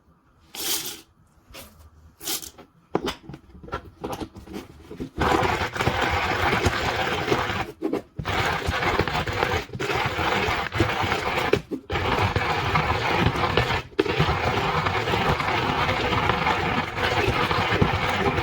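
Hario MSS-1DTB hand-cranked ceramic burr coffee grinder crushing coffee beans. Scattered clicks and crunches for the first few seconds, then a steady, dense crunching grind with a few short breaks.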